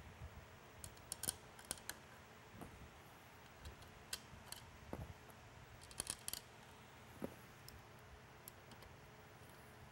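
Faint, scattered small clicks and ticks of small machine screws being picked up and set by hand into the top of an LED beacon's circuit board and metal reflector assembly.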